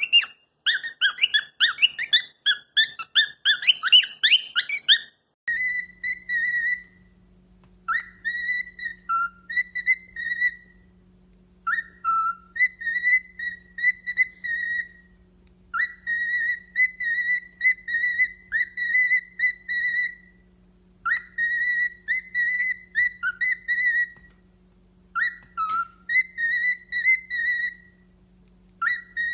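A parrot chirping rapidly, then, after a cut, whistling short phrases on a steady high note with brief dips, with pauses between phrases. A steady low hum runs beneath the whistling.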